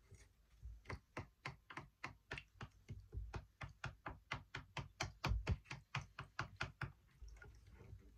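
A spoon stirring drink mix in a container, knocking against it in a rapid, even rhythm of about five knocks a second, stopping about a second before the end.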